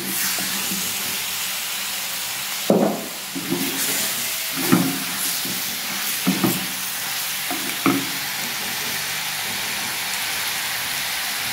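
Chicken pieces in spice masala sizzling as they sauté in a clay pot (mann chatti), a steady hiss. A wooden spatula stirs them, scraping and knocking against the pot four or five times in the first eight seconds.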